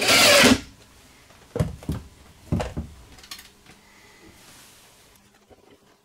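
Cordless drill-driver running, driving a screw into wood to fasten an inverter's mounting foot, and stopping about half a second in. Four dull knocks follow over the next two seconds or so.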